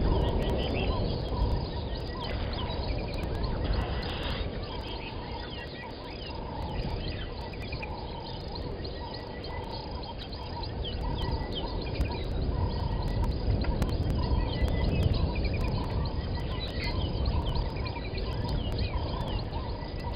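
Outdoor bush ambience with birds calling: one bird repeats a short, low call about once a second while others chirp higher, over a steady low rumble.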